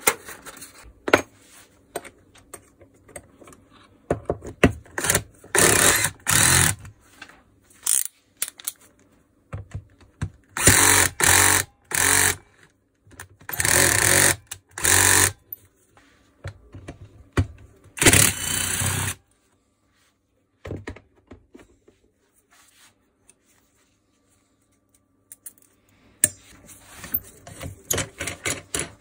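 Cordless drill-driver running in several short bursts as it backs screws out of a demolition hammer, with clicks and knocks of parts and tools being handled between the bursts. A silent pause of several seconds falls in the middle, and the clatter of handling picks up again near the end.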